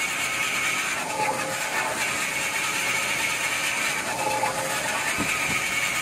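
Semi-automatic band-saw cutting machine for toilet-paper and kitchen-towel rolls running steadily with a hissing whir. Its note changes briefly about a second in and again about four seconds in, and two short knocks come about five seconds in.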